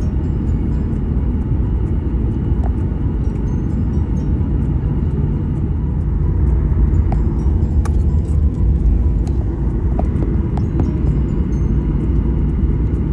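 Steady low rumble of engine and airflow noise inside an airliner cabin, growing slightly louder about halfway through, with a few light clicks and rattles.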